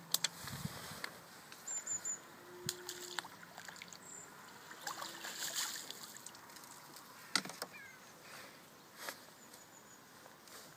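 Fishing tackle being handled at the water's edge: scattered small clicks and knocks from the rod and feeder, with a brief low thump near the start and light water sloshing.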